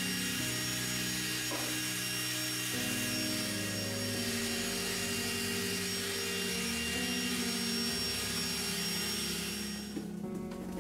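DeWalt cordless drill spinning a foam polishing cone against a painted metal radiator cover: a steady motor whir with a rubbing hiss that stops about ten seconds in. Background music with sustained notes plays underneath.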